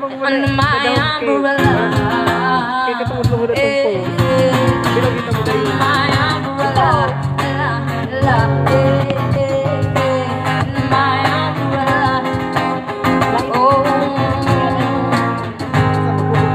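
Live acoustic music: a singer with a strummed acoustic guitar, played through the stage speakers.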